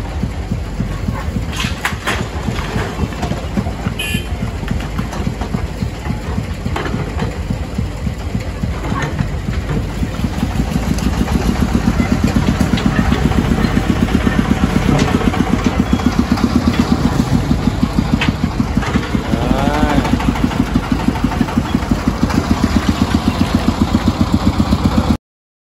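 Engine running with a rapid, even chugging that grows louder about ten seconds in, with clatters of bricks and rubble being scooped and dropped early on. The sound cuts off suddenly near the end.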